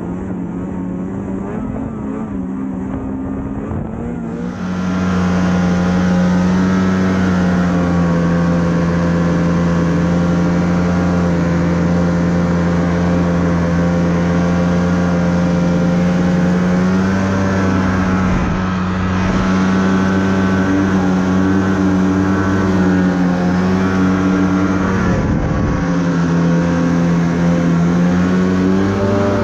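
Snowmobile engine running at a steady pitch under way, getting louder about four seconds in. The engine note dips briefly twice in the second half, as the throttle eases and picks up again.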